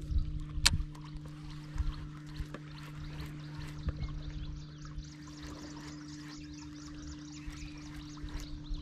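Water lapping and trickling against the hull of a small fishing boat over a steady low hum. A single sharp click comes under a second in, as the baitcasting reel is cast.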